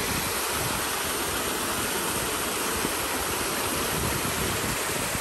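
Small waterfall cascading over dark rock: a steady rush of falling water.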